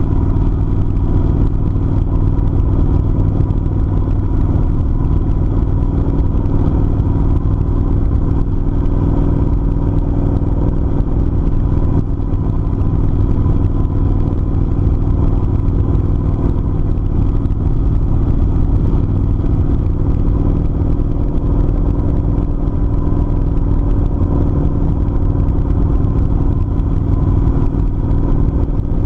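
Kawasaki Vulcan 900's V-twin engine running steadily at an even cruising speed, its note holding one pitch throughout.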